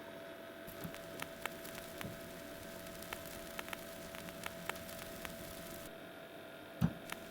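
Stylus running in the lead-in groove of a vinyl record on a Radiotekhnika 301M stereo electrophone: surface hiss and a steady hum with scattered sharp clicks and crackles, and one heavier low thump near the end, just before the music starts.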